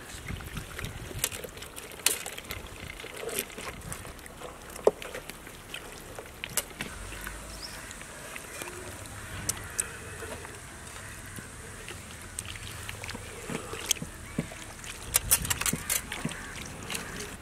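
Wet squelching and slapping of hands rubbing a thick curd and spice marinade into a whole skinned goat carcass on a steel platter: irregular sticky slaps and clicks, busiest near the end.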